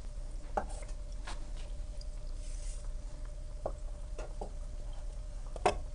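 A knife cutting through dough onto a wooden board, making a few scattered soft knocks as the blade meets the wood; the sharpest comes near the end. A faint steady hum runs underneath.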